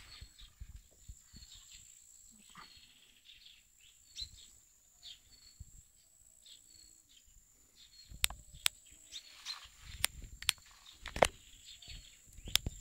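Outdoor rural ambience: faint short high bird chirps over a steady high-pitched whine. From about eight seconds in come several sharp, loud clicks.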